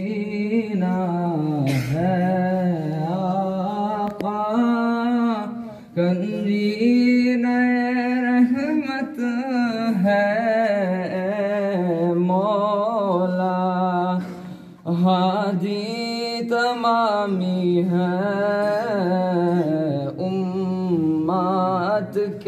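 A young male voice singing a naat unaccompanied, in long, wavering, ornamented lines. He breaks briefly for breath about six seconds in and again about fifteen seconds in.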